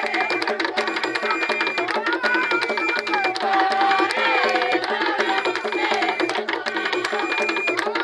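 Several hand-beaten wooden drums playing a fast, driving rhythm, with hand clapping and a group of voices singing over it.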